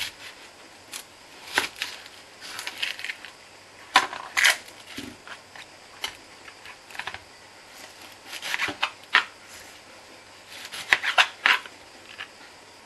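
Kitchen knife cutting a large onion on a plastic cutting board: irregular clusters of crisp cuts and knife taps on the board, with pauses between them.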